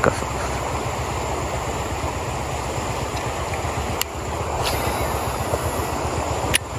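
Steady rush of a fast-flowing river, with two sharp clicks, one about four seconds in and one near the end.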